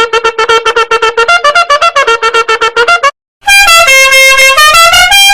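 Meme sound effect clips with a brassy, horn-like tone. First comes a rapid run of short staccato notes, about ten a second, mostly on one pitch. After a brief gap just past three seconds, a short tune of longer notes steps up and down in pitch.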